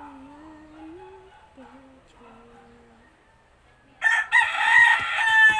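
Soft humming of a tune, then about four seconds in a rooster crows loudly, one long crow that bends in pitch.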